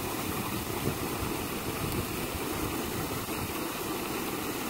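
Steady, deep rush of pumped water gushing out of a large discharge pipe and churning into the canal.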